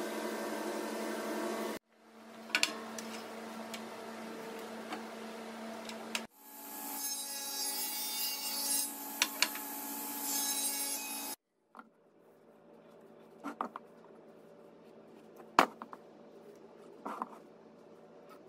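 Woodworking sounds in several abruptly cut clips: wood being handled and rubbed, then a sliding table saw cutting a mahogany block with a loud hiss. A quieter stretch follows, with a pencil scratching along a combination square and a few sharp clicks.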